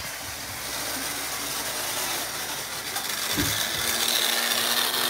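A plugged-in homemade contraption machine running with a steady mechanical whir; it grows louder about three and a half seconds in, where a steady low hum joins it.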